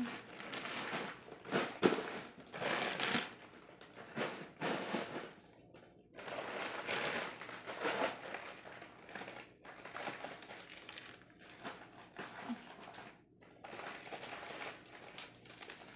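Plastic wrappers and packaging crinkling and rustling as wrapped chocolates and toiletries are handled and packed into a suitcase, in uneven bursts. A sharp tap about two seconds in is the loudest sound.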